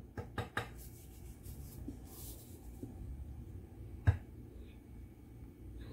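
Kitchen handling sounds of a plastic-gloved hand working over a tray of lasagna: a quick run of light clicks at the start, soft rustling, and one sharp knock about four seconds in.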